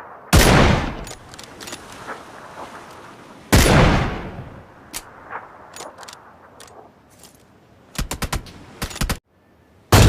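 Gunshot sound effects: two loud single shots about three seconds apart, each with a long echoing tail, then scattered light clicks, and a quick burst of about five shots near the end.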